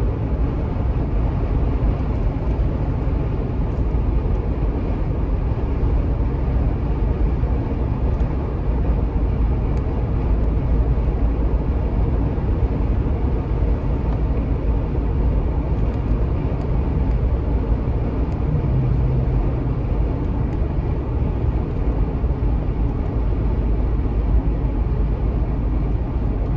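Steady road and engine noise heard from inside a moving car's cabin, a constant rumble heaviest in the low end.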